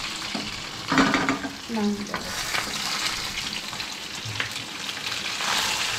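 Flour-coated chitol fish steaks sizzling steadily in hot oil in a grill pan as the fried pieces are lifted out, with a few short clicks of the spatula.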